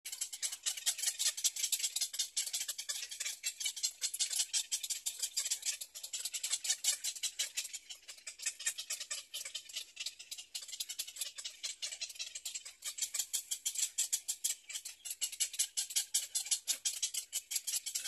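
Continuous rapid, high-pitched chirring made of many fine ticks, fluttering slightly in loudness, with no calls or voice.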